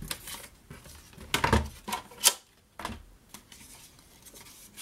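Paper trimmer cutting a strip of designer paper, then the paper strip being lifted and handled: short rustles of paper and a sharp click about two seconds in, with a few fainter clicks after.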